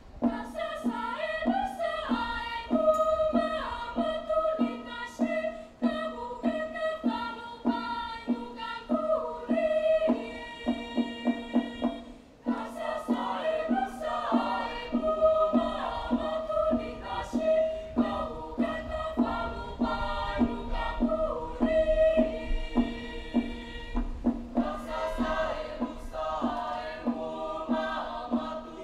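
A choir of junior-high students, boys and girls, singing a traditional Taiwanese indigenous song in their mother tongue. The voices move over a steady low held note, with a brief pause about twelve seconds in.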